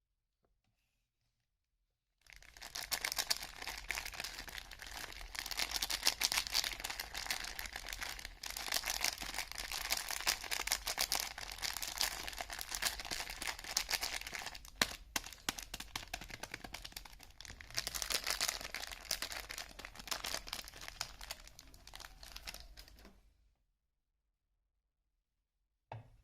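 Soap packaging torn open and crinkled by hand: a dense, continuous crackling rustle that starts about two seconds in and stops about two seconds before the end.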